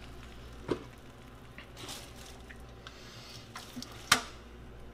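A few light clicks over a low steady hum, the sharpest and loudest near the end.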